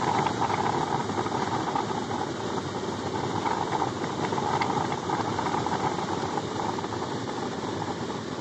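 2005 Ford Explorer idling with its climate-control blower running: a steady, even rush with no clacking, the new blend door actuator having cured the clacking.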